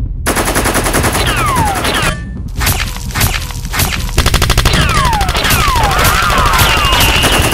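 Dubbed-in movie gunfire sound effects: rapid automatic fire with repeated falling ricochet whizzes. The firing breaks off briefly about two seconds in, then resumes.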